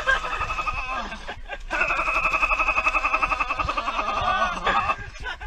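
A man laughing: a long, rapid run of high-pitched laughs starting about two seconds in and lasting about three seconds, with shorter voice sounds before it.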